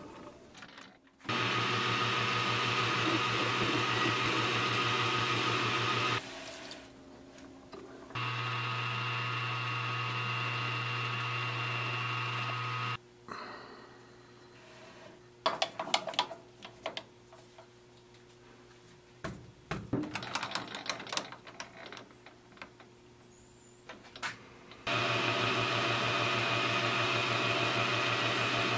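Small metal lathe running in three spells, its motor humming steadily, each start and stop sudden. Between the spells come quieter stretches of clicks and knocks from handling the work and chuck, and near the end the lathe is turning with a carbide insert facing the end of a short piece of round stock.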